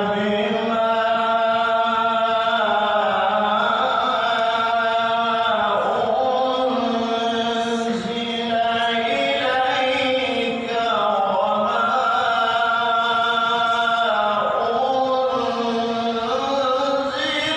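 A man's solo melodic recitation of the Qur'an (tilawah) into a handheld microphone, in long, drawn-out, ornamented phrases with brief breaks about eight and eleven seconds in.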